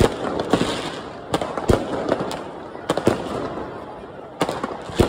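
Aerial fireworks shells bursting overhead: about six sharp, loud bangs at irregular intervals, with crackling between them.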